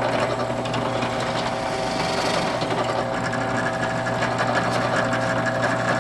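Benchtop drill press motor running with a steady hum while its 3/8-inch twist bit bores through a wooden board, with a brief rise in hiss about two seconds in.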